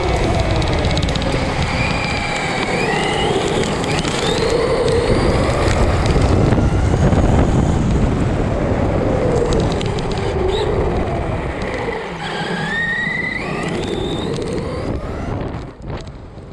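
Arrma Outcast 4S BLX's brushless motor whining up and down in pitch as the throttle is worked, over a rough rumble of tyres and drivetrain; it fades out near the end.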